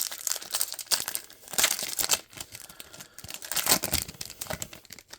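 A football trading-card pack's wrapper being torn open and crinkled: a run of crackling rips and rustles, loudest about two seconds in and again near four seconds.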